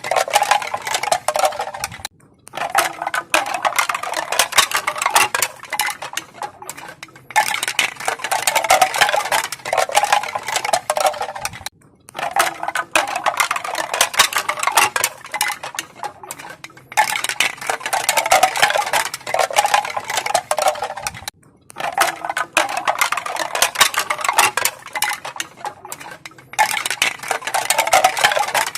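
Bamboo pieces clacking together in a dense, rapid rattle of crisp knocks. The rattle comes in stretches of about four to five seconds, each broken off by a brief pause.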